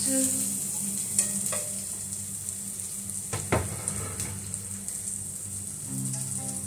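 Food sizzling as it sautés in a little oil in a kawali (wok-style pan), with a steady hiss. A spatula scrapes and knocks against the pan a few times, most sharply about halfway through.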